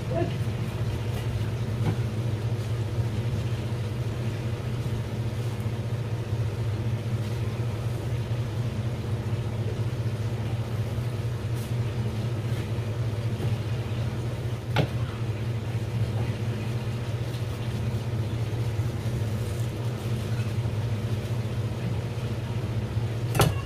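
A steady low mechanical hum, with one sharp tap about fifteen seconds in and another near the end.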